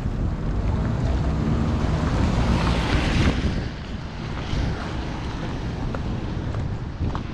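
Wind buffeting the microphone, a heavy low rumble, with a rush of noise that swells and fades about three seconds in.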